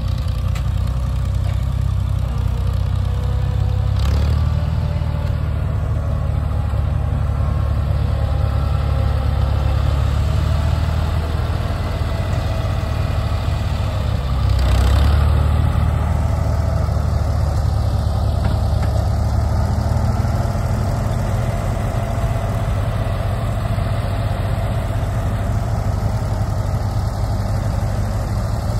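Ford 4000 tractor engine running steadily close by while it works a front-loader bale grapple. It swells louder briefly twice, about 4 and 15 seconds in.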